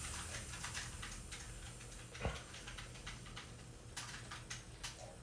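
Gas canister stove under a lidded canteen cup of rice coming to the boil, its faint hiss dropping away over the first two seconds as the flame is turned down. Scattered faint ticks from the heating cup, with one dull knock about two seconds in.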